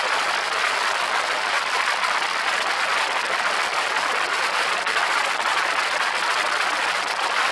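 Steady rush of wind and engine noise aboard an open-cockpit twin-propeller light aircraft in flight, an even hiss with no clear pitched note.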